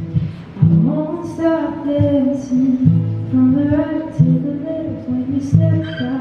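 Music: a song with singing over guitar and bass.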